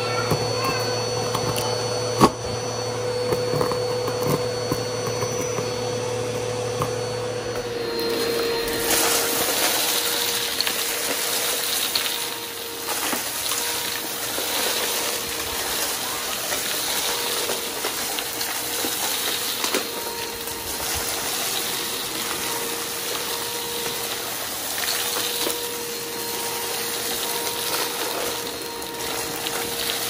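Vacuum cleaner running steadily with a constant whine. There is a sharp click about two seconds in, and about eight seconds in the sound turns hissier.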